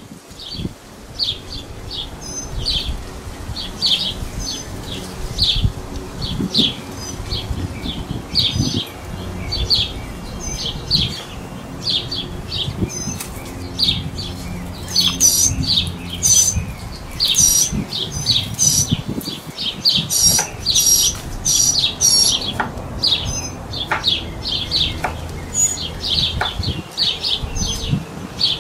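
Small birds chirping in quick, short repeated calls, several a second, with higher whistled notes joining through the middle stretch.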